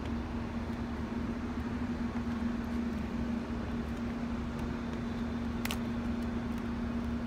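Diesel locomotive engine idling with a steady hum over a low rumble. A single sharp click comes about five and a half seconds in.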